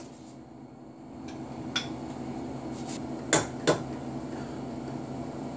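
Light ceramic clinks: a bowl set down on a plastic cutting board, then an egg tapped twice against the bowl's rim to crack it. Under it runs the steady hum of a washing machine.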